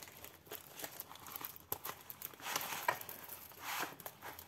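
Clear plastic film on a diamond-painting canvas crinkling as the canvas is unrolled and pressed flat by hand, in a few short irregular spells.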